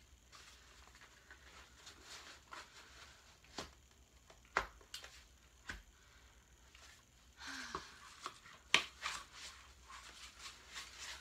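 Handling noise from a Graco Pack 'n Play: mesh and fabric rustling, and light plastic clicks and knocks as the bassinet frame is fitted onto the playard's top rails. A few sharp clicks stand out, the loudest about three-quarters of the way through.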